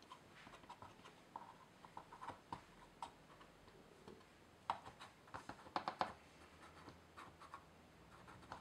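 Faint scattered clicks and small scrapes from an Elmer's Glue-All bottle being squeezed, its plastic nozzle running along the top edges of thin card walls as a bead of white glue is laid; the clicks come thickest about five seconds in.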